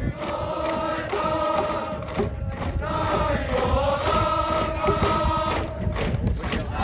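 A large group of voices singing together in long held notes that step from pitch to pitch, over a steady beat of sharp knocks.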